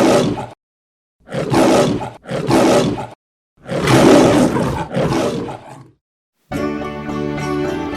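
A run of five short, rough animal roars, each about a second long and cut apart by dead silence. About six and a half seconds in, music starts.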